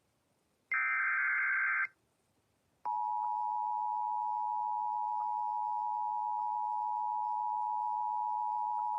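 Emergency Alert System broadcast: a SAME header data burst, a buzzing warble of two alternating high tones lasting about a second, starts about a second in. About two seconds later the EAS two-tone attention signal (853 and 960 Hz) comes on as a steady, unbroken tone.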